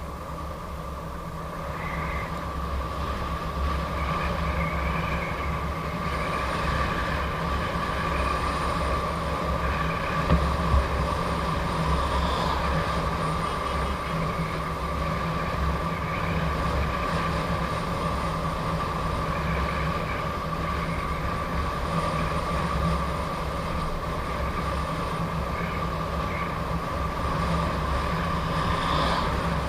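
Riding noise from a Gotway MSP electric unicycle at speed: steady wind rumble on the microphone with road noise and a steady high whine, and two brief bumps about ten seconds in.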